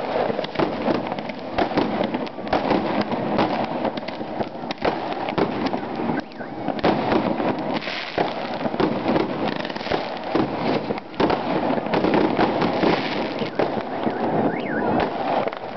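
Many fireworks going off at once, rockets launching and bursting overhead: a dense, unbroken crackle of bangs and pops with no pause.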